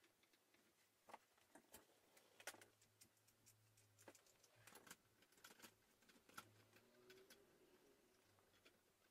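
Faint, scattered clicks and taps of a plastic lamp holder being handled and fitted onto a light stand, over a faint low hum.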